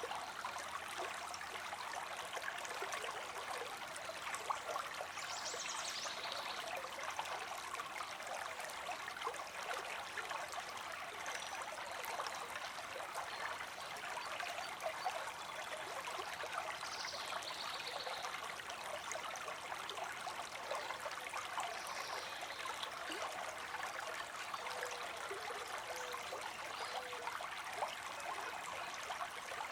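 Creek water streaming and trickling steadily, an even babbling rush.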